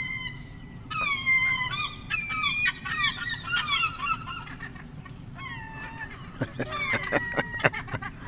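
Gulls squabbling over food, calling in rapid, overlapping squawks that each fall in pitch. A run of sharp clicks or taps comes in the last couple of seconds.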